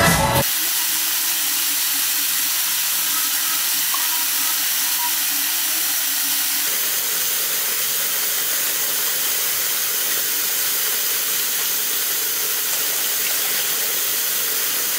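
Steady, even hiss of running water in a bathroom, starting as the music cuts off about half a second in.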